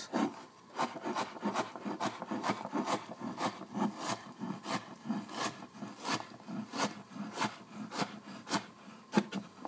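Kitchen knife chopping pear into chunks on a wooden cutting board: a steady run of blade knocks on the wood, about three a second.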